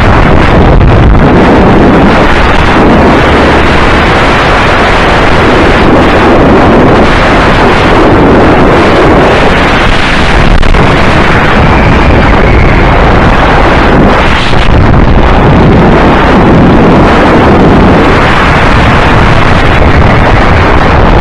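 Go-kart engine running at speed through the corners, mostly buried under heavy wind buffeting on the onboard camera's microphone. The sound is very loud and near full scale.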